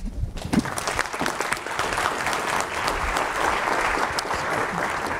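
Audience applauding, many hands clapping. It starts about half a second in and cuts off suddenly near the end.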